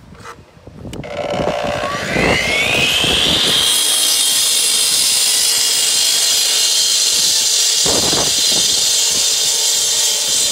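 Electric concrete saw started up: its motor winds up with a rising whine from about a second in, then runs steady at full speed with a high-pitched whine and hiss.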